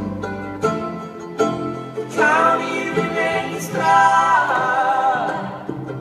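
Live band playing an instrumental passage: plucked guitar and upright bass, joined about two seconds in by a sustained lead melody that wavers in pitch.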